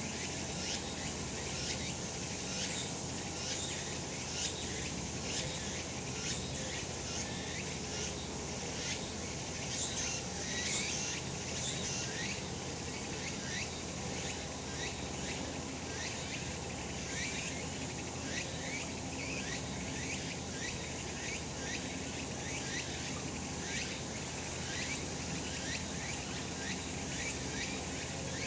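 Cicadas singing in chorus: a dense, high-pitched shrill with rapid repeated rising chirps through roughly the first half, settling into a steadier shrill later on.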